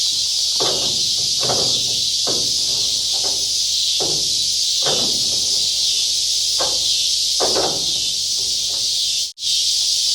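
Steady high-pitched insect chorus, with a rhythmic series of short scraping strokes about once a second from a box-end wrench tightening down hood latch bolts. The sound drops out for an instant near the end.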